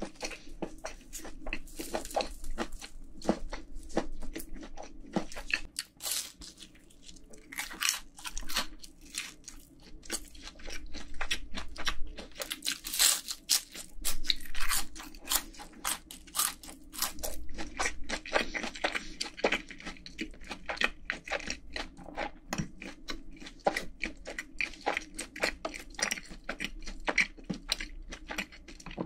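Close-miked chewing of a fried cheese ball, a fried coating around chewy rice cake and cream cheese: a dense run of rapid crunching and chewing sounds.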